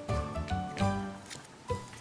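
Background music: a light instrumental tune of short separate notes.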